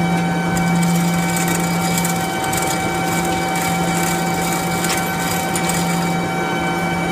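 Steady machine hum made of several held tones, the lowest the strongest, over a noisy background, with a few faint clicks.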